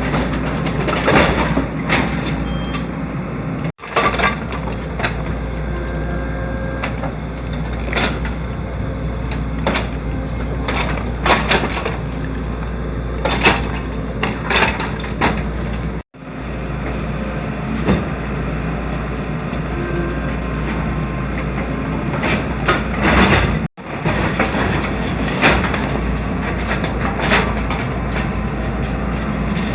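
Excavator engine running steadily under many irregular knocks and cracks of concrete being broken and debris being moved.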